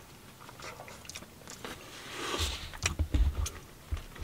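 Close-up chewing and wet mouth sounds of people eating soft, cream-filled doughnuts, faint at first, then a cluster of louder clicks and low thumps from about two seconds in.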